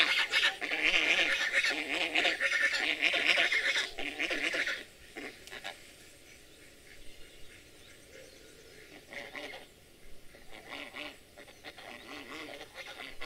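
White domestic geese honking loudly and repeatedly, which stops about five seconds in, after which only a few faint scattered sounds remain.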